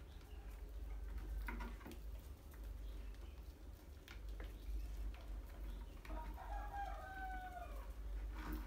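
Scattered clicks and scratches of rats moving over the tiled floor and glass jars, over a steady low hum. About six seconds in comes one drawn-out animal call, slightly falling in pitch, lasting about a second and a half.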